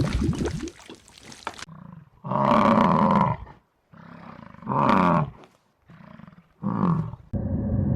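A wild animal giving three loud calls, each shorter than the one before.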